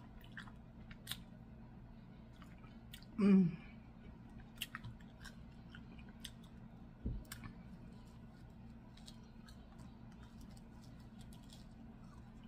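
Close-miked eating sounds: chewing with scattered wet mouth clicks and lip smacks. About three seconds in there is a short hummed vocal sound falling in pitch, and a soft low thump comes near the middle.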